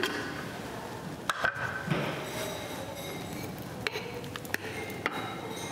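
A handful of sharp clicks and light clinks: the Thermomix lid being lifted off and small glass bowls knocking against the mixing bowl as ingredients are tipped in.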